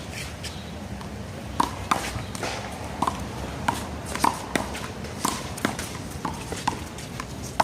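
Rubber handball being slapped by hands and rebounding off the wall and pavement in a one-wall handball rally: a run of sharp, irregular smacks and short pings, roughly two a second.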